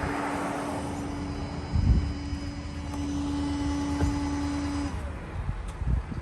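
A car's engine running while it backs up, with a steady hum that cuts off suddenly about five seconds in, and a thump about two seconds in.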